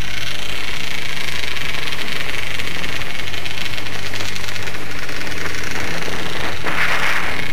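Off-road vehicle engine running steadily while riding a dirt trail, with a steady rush of wind and trail noise that swells briefly near the end.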